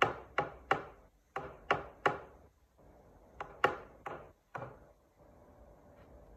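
Wooden whack-a-mole cat toy clacking: about ten sharp wooden knocks in uneven groups, each ringing briefly, stopping about five seconds in.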